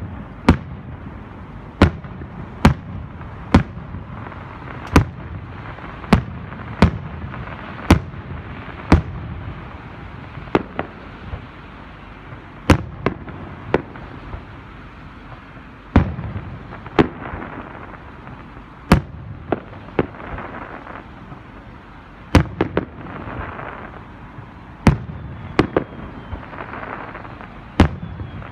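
Aerial fireworks shells bursting overhead in a rapid series of sharp booms, about one a second at first and then more spaced out, with a fainter crackling hiss after some bursts in the second half.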